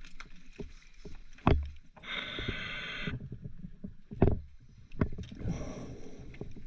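A scuba diver breathing through a regulator. A hiss of inhaled air comes about two seconds in and again near the end, about three seconds apart, with a rumbling exhalation between them. Scattered knocks run through it.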